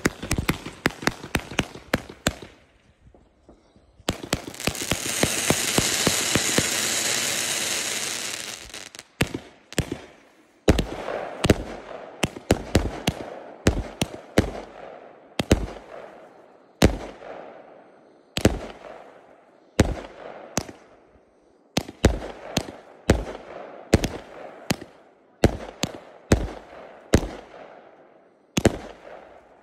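A multi-shot firework cake (battery) firing. It crackles rapidly at first, gives a few seconds of loud steady hissing, then fires a regular series of shots that burst overhead, about one or two a second, each a sharp bang trailing into a fading crackle.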